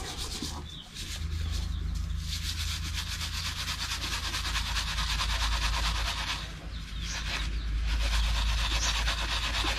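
A scouring pad being rubbed hard against a bar of laundry soap to load it for scouring, a continuous scratchy scrubbing with two brief pauses. A steady low hum runs underneath.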